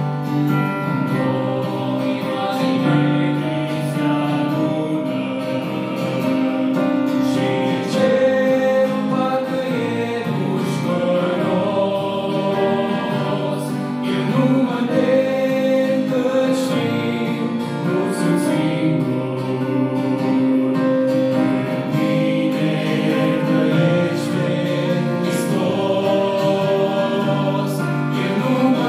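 A male vocal group singing a Romanian gospel hymn in harmony, accompanied by acoustic guitar.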